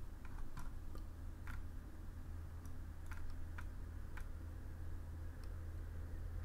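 Scattered light clicking at a computer, about nine clicks over the first five and a half seconds, over a steady low hum.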